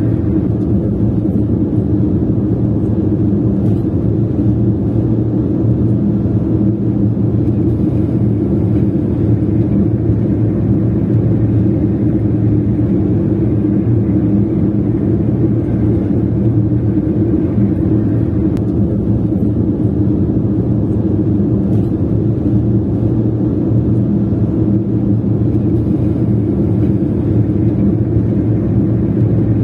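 A car driving along: a steady low rumble of engine and tyre noise that does not change.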